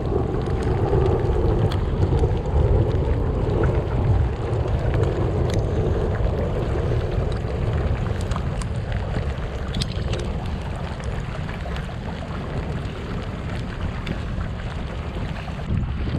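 Wind buffeting the microphone over water rushing along the hull of a pedal-driven kayak under way, with scattered light ticks.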